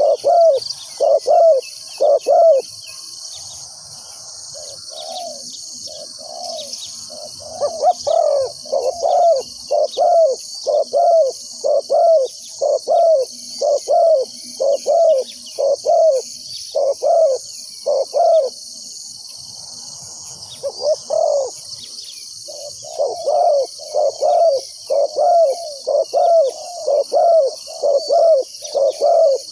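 Spotted doves cooing: a long run of deep coos, about two a second, that pauses twice. A steady high-pitched insect drone runs underneath.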